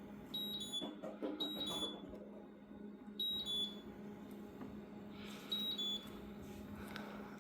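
Beko B300 dishwasher's control panel beeping as its buttons are pressed: four short high electronic beeps spread over several seconds, each a quick two-note chirp stepping down slightly in pitch. A steady low hum and soft handling noise sit underneath.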